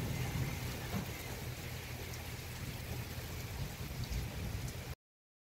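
Heavy rain pouring steadily, with a low rumble underneath; the sound cuts off abruptly near the end.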